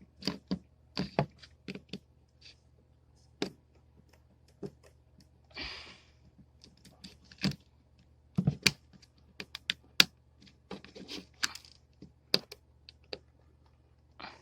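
Irregular sharp clicks and taps of a precision screwdriver working the small screws out of an LG K10 phone's plastic back frame, with brief scraping rustles about six and eleven seconds in.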